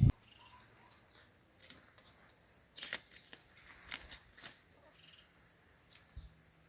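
Faint rustling with a few light clicks, bunched between about three and four and a half seconds in.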